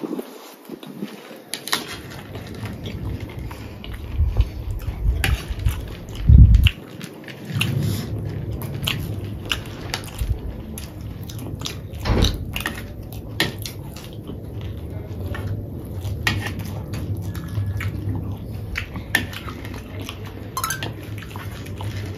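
Metal spoons clicking and scraping against paper plates while people eat and crunch on puffed-rice chatpate, a scatter of short sharp clicks over a steady low hum, with a few heavier low thumps about six seconds in.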